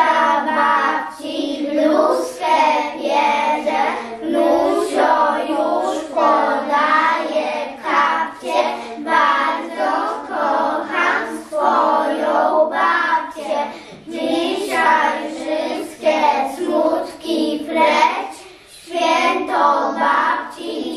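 A group of young children singing a song in Polish together, phrase after phrase, with a short breath-pause near the end.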